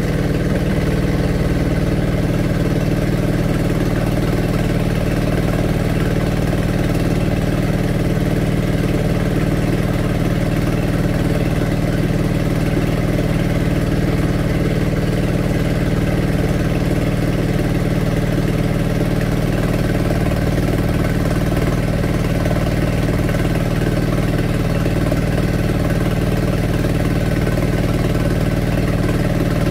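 Engine of a kelotok river ferry boat running steadily at an even, unchanging pace.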